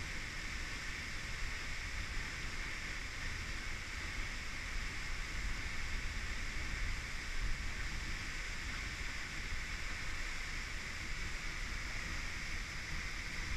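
Steady roar of a waterfall falling close by, with a rough low rumble of wind on the microphone.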